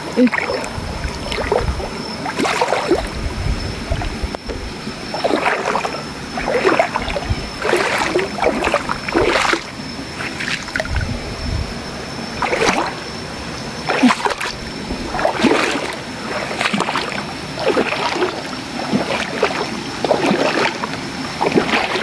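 Feet wading through a shallow stream, irregular splashes about once a second over running water.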